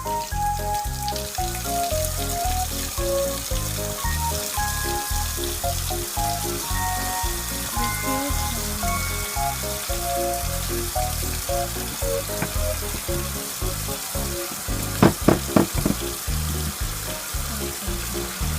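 Background music with a steady beat and a plucked-sounding melody over a steady hiss, with a short burst of several loud strokes about three-quarters of the way through.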